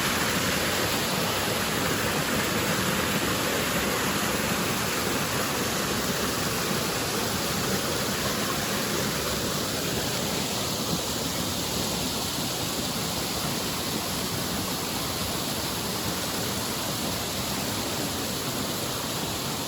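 Waterfall rushing: a steady, even roar of water falling and churning over rock.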